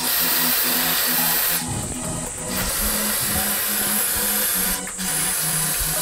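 Aerosol spray can sprayed in three long bursts, a steady hiss with short breaks between them. Background music with stepped notes plays underneath.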